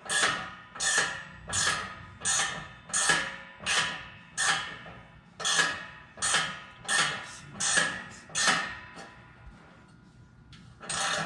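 Hand ratchet wrench backing out exhaust bolts: a short burst of ratchet clicks on each return swing, in an even rhythm of about three every two seconds, which stops about eight and a half seconds in, with one more near the end.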